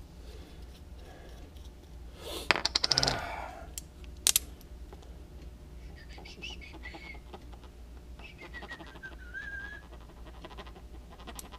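Small metal parts clinking while the seat clamp bolts are handled and greased: a short rattle of clicks about two and a half seconds in and a single sharp click a second later. In the second half a faint thin wavering whistle-like tone sounds over a low steady hum.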